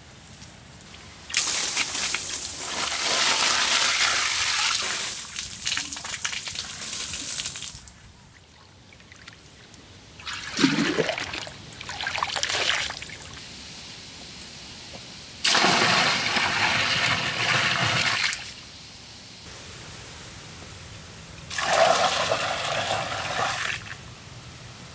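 Water poured from a clay pot splashing into a concrete pool. It comes in four separate pours, the first about six seconds long and the others two to three seconds each, with a short gurgle near the start of the second.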